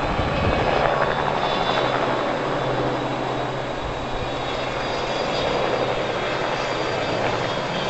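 A low-flying spray aircraft running overhead, its engine giving a steady drone with a low hum throughout. This is the aerial spraying run against gypsy moths.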